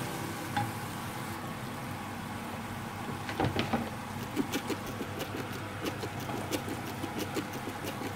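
Ground beef, onion and sweet corn sizzling in a hot pan while a wooden spatula stirs them. From about three seconds in there is a run of short knocks and scrapes of the spatula against the pan.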